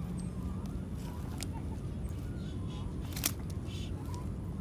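Steady low background rumble with a few sharp clicks, the loudest a little past three seconds in.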